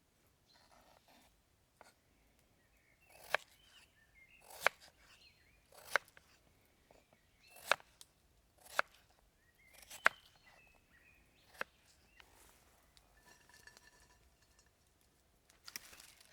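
A series of about seven sharp knocks, roughly one every second or so, each led in by a short rustle.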